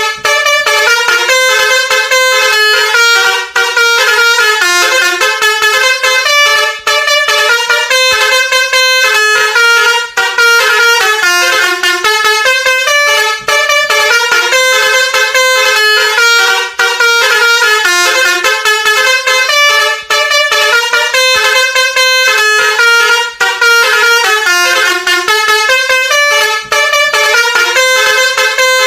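Basuri V3 multi-tone musical horn (klakson basuri) playing a looping melody of short horn notes, loud and continuous. The phrase repeats about every three seconds.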